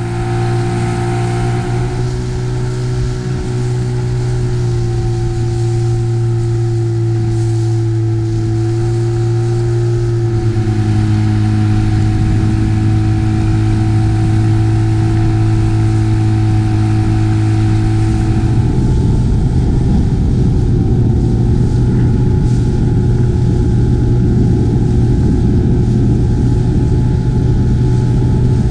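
Outboard motor of an inflatable boat running steadily at speed, its note shifting slightly about ten seconds in. A rougher rushing noise joins the engine for the last ten seconds or so.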